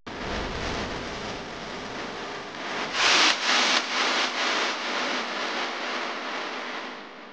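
Rough rubbing, scraping noise that starts and stops abruptly, with a run of louder scrapes about three a second near the middle.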